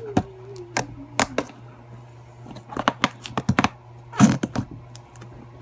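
Slime being squeezed and worked by hand, giving an irregular run of sharp sticky clicks and pops.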